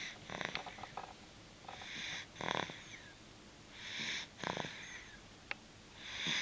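A sleeper snoring in slow, regular breaths about every two seconds: each breath is a hissing draw of air followed by a short fluttering snore.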